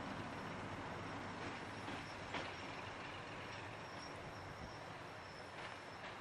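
Class 37 diesel locomotive running steadily as it approaches at low speed, with a few faint clicks over the engine sound.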